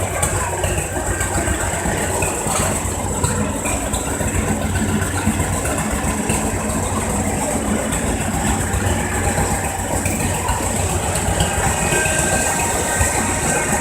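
Farm tractor engine running at a steady pitch.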